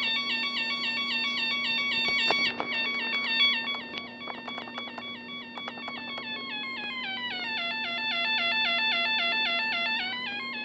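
Freshly assembled Elenco learn-to-solder kit circuit sounding through its small speaker: a buzzy electronic chirping tone that repeats about four times a second, its pitch shifting down and back up in the second half. A few clicks of handling come between two and five seconds in.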